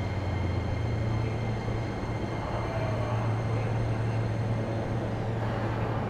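Electric train standing at the station with its onboard equipment running: a steady low hum with several faint, steady high-pitched whines.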